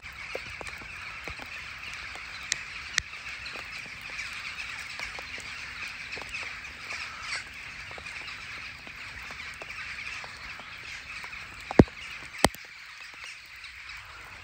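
A large flock of crows cawing all at once in a continuous din, with two sharp clicks near the end.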